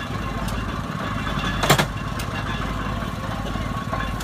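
Engine running steadily with a fast, even beat, with one sharp knock about a second and a half in and a few fainter clicks.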